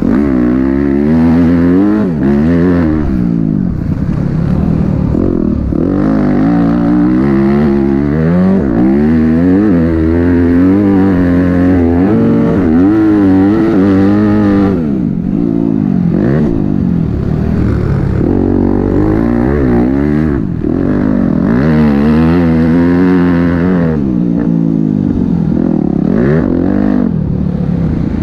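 Yamaha motocross bike engine revving hard at race pace, its pitch climbing and falling every second or two as the throttle opens and shuts through the corners and gear changes.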